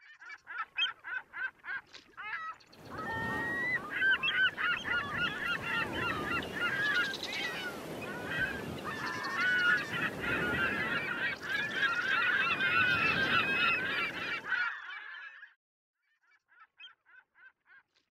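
A flock of birds calling: a quick run of calls, then many calls overlapping over a rushing noise for about twelve seconds. This stops suddenly, and a few last calls come near the end.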